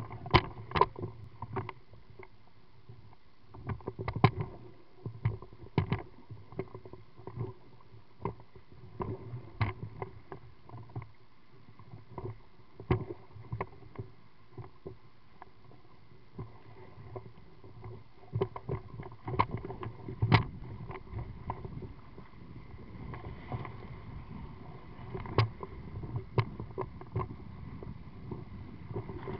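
Small inflatable pontoon boat riding down a river: water slapping and splashing against the hull in irregular sharp knocks over a low, steady rush of moving water.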